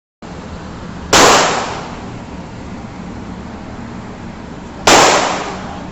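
Two handgun shots, about a second in and again near the end, each a sharp crack trailing off in a short echo.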